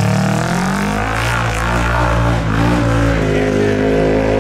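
Polaris RZR RS1's parallel-twin engine, running through an aftermarket exhaust on an Aftermarket Assassins stage 2 tune, revving as the machine is driven. Its pitch rises and falls in the first couple of seconds, then holds fairly steady.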